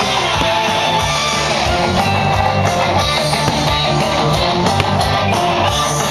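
Music with guitar playing at a steady level.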